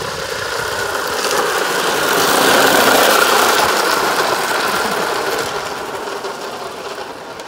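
Hard plastic wheels of a child's toy trike rolling and sliding on wet asphalt, a continuous gritty rumble. It grows louder for the first few seconds, then fades.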